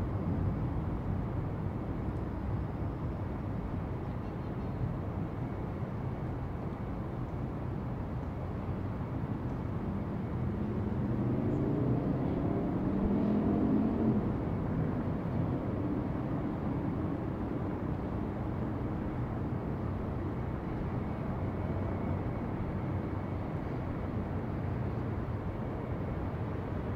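Steady low rumble of city traffic, with one motor vehicle passing about ten to fifteen seconds in, its engine note rising and then falling as it goes by.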